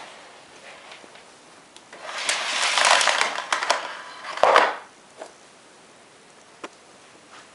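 Electrolux Ultra Silencer Green ZUSG3000 canister vacuum's cord rewind reeling the power cord in: a rattling, whirring clatter that starts about two seconds in, lasts about three seconds and ends with a louder clatter as the cord finishes winding in. The vacuum motor is not running.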